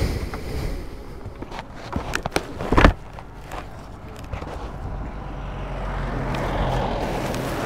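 Motorcycle engine running low in the background, with a few knocks and one loud thump about three seconds in, and a rising rush of noise over the last couple of seconds.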